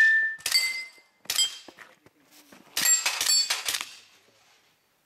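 Pistol-caliber carbine shots, many followed by a short metallic ring of steel targets being hit. Three spaced shots come first, then a quick string of about five shots near the middle.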